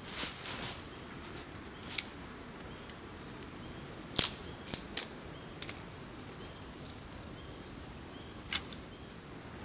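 A handful of sharp, short snaps or clicks, three of them close together about four to five seconds in, over a steady outdoor background of wind noise, with faint short high chirps repeating in the background.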